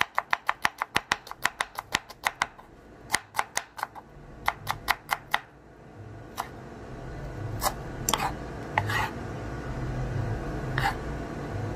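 Kitchen knife chopping a red onion on a wooden cutting board. The knocks come quickly, about five a second, for the first two seconds or so. They then fall into short runs and thin out to occasional single chops in the second half.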